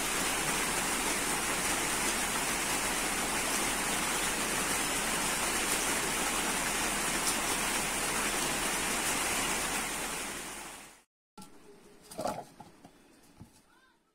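Steady rush of falling water, like heavy rain on foliage, which fades out about ten seconds in. After it, a much quieter stretch with a brief knock about twelve seconds in.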